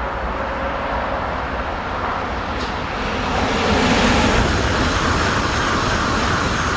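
A train running, a steady rushing rumble that grows louder about three seconds in and holds.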